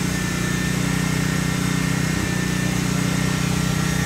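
A steady, even engine hum, as of a motor idling close by, under the hiss of a ground fountain firework spraying sparks.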